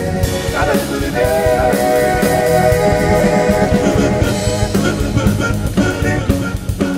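Live band with keyboard, bass guitar, drums and horns playing an instrumental passage of a rock-flavoured song, a lead melody line gliding over a steady beat.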